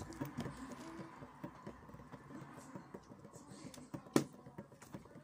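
Plastic water bottle being handled: small clicks and crinkles as the cap is twisted open, then a single sharp plastic click about four seconds in as the bottle is tipped up to drink.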